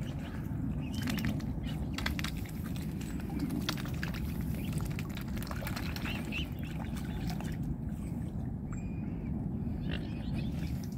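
Mute swan cygnets dabbling and feeding at the water's surface: many small splashes and bill clicks in the water, with a few short high chirps, over a steady low rumble.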